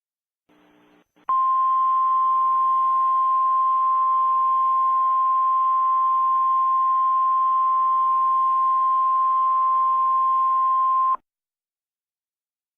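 NOAA Weather Radio 1050 Hz warning alarm tone: one steady high tone over faint hiss, about ten seconds long. It starts about a second in and cuts off sharply near the end. It signals that a weather warning is about to be broadcast.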